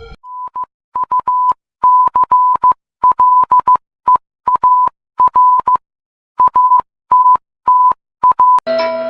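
Emergency alert alarm: a single loud beep tone of about 1 kHz keyed on and off in an irregular pattern of short and long beeps, like Morse code. Near the end it gives way to a sustained chord of steady tones.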